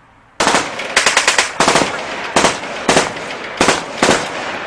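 Rapid bursts of automatic-sounding gunfire, about seven bursts of quick shots with short gaps, starting about half a second in.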